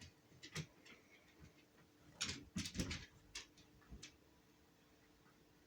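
A few faint, short clicks and rustles, scattered through the first four seconds.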